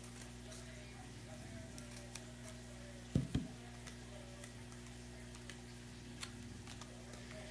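Scissors snipping thin cardboard in faint, scattered clicks, with a dull double thump about three seconds in as the scissors are set down on a towel-covered table.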